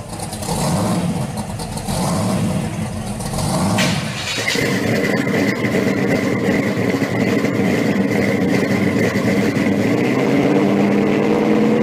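Supercharged engine of a blown 1970 Camaro Z/28 pro street car running, uneven at first and then settling into a steadier run, with a steady high whine joining about four and a half seconds in.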